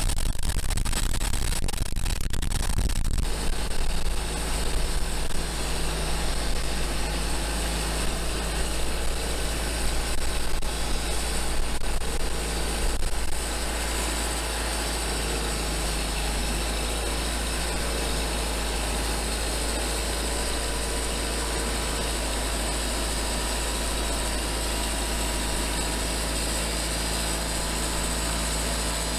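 Engine-driven homemade band sawmill running, uneven in loudness for about the first thirteen seconds, then running steadily.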